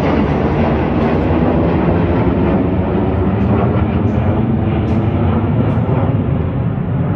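Engine rumble from a formation of military jets flying past overhead: a steady, loud low rumble whose hiss slowly dulls as the aircraft draw away.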